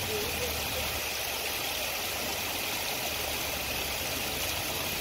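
Steady background noise by open water: an even hiss with a low rumble underneath, no distinct events.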